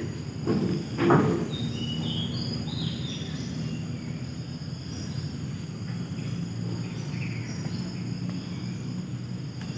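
Steady high trilling of insects from the surrounding vegetation, with a bird calling in short falling notes between about two and three and a half seconds in, over a low steady rumble. A brief loud rush about a second in is the loudest sound.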